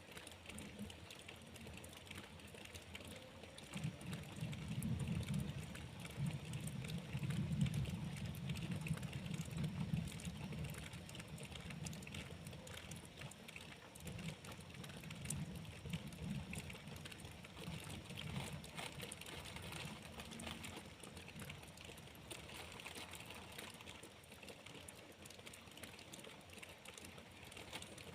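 Rain pattering and dripping in many small ticks, over a low rumble that swells about four seconds in, is loudest for several seconds, then fades away.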